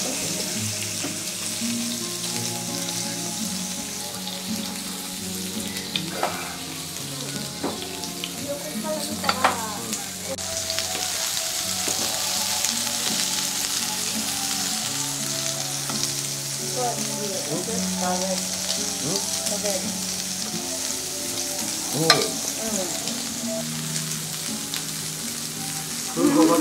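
Food sizzling steadily as it cooks, under soft background music, with a few sharp clinks of tableware.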